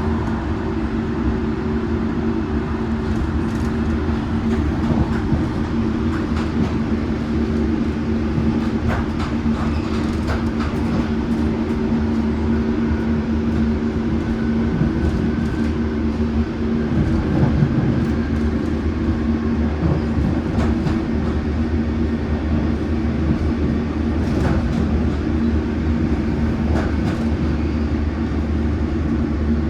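Metropolitan line S8 stock train running steadily at speed: a continuous low hum from the traction motors under rolling wheel noise, with occasional clicks and knocks from the track.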